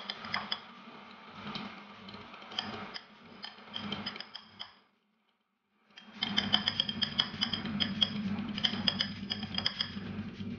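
An egg being beaten in a bowl: a utensil clicks rapidly and steadily against the side of the bowl. The sound cuts out completely for about a second halfway through, then resumes.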